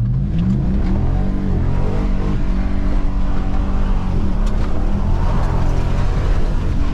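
A four-wheel-drive's engine running under way, its pitch rising over the first second or two, then holding fairly steady.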